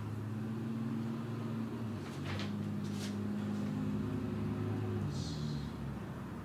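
Steady low mechanical hum in a small room, with a few short, faint scratches of a pen writing on paper.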